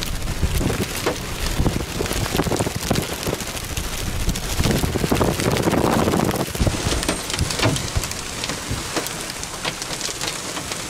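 Heavy rain beating down in a tornado's wind, with many sharp hits of drops and a low, gusting wind rumble that swells about halfway through.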